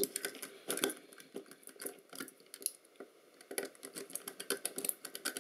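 Irregular small clicks, taps and scrapes of plastic and metal parts as hands handle and work at the front of a partly disassembled film SLR camera body.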